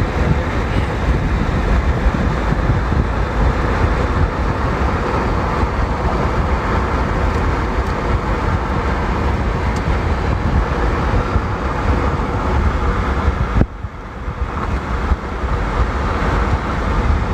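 Steady, loud rumbling noise, heaviest in the low end, that drops suddenly about fourteen seconds in and builds back over the next second or two.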